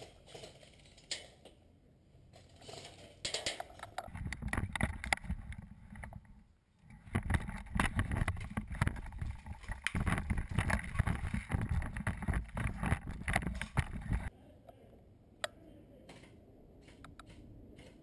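Rumbling movement noise on a body-worn action camera, with many rapid knocks and clatters, starting about four seconds in and stopping abruptly after about ten seconds; after that only a low hiss with a few sharp single clicks.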